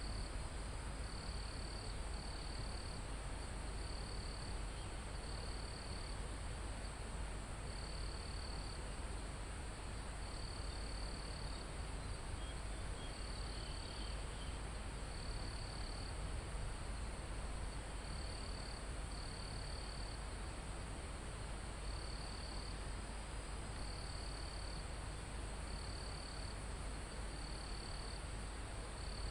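Forest insects and crickets: a steady high-pitched insect drone, with a shorter trill repeating every second or two, over a low, even rumble of wind.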